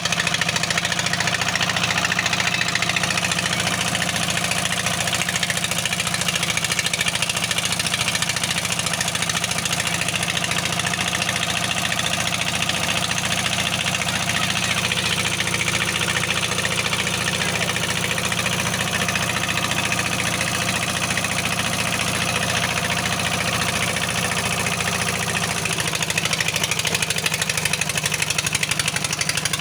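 Heavy-equipment diesel engine running steadily at idle.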